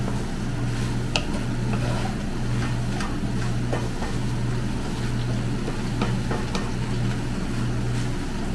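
Wooden spatula stirring chicken and vegetables in a nonstick wok, giving scattered light clicks and scrapes against the pan, over a steady low hum.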